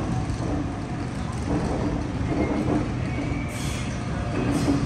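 Steady low hum of a stationary Waratah double-deck electric train standing at the platform, with two short bursts of air hiss near the end.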